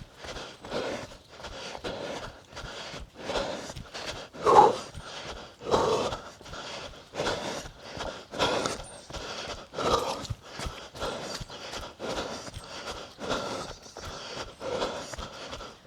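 A runner's quick, steady footfalls on forest ground with heavy panting breaths, loudest about four and a half seconds in.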